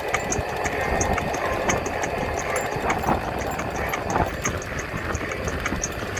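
Wind rushing over the microphone and tyre rumble from a DIY electric scooter riding at speed on a paved path, with a faint, regular high ticking about four times a second.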